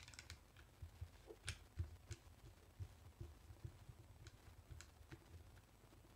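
Faint, scattered clicks and small knocks of a screwdriver turning a terminal screw on a contactor as the contactor is handled, with a few sharper ticks among them.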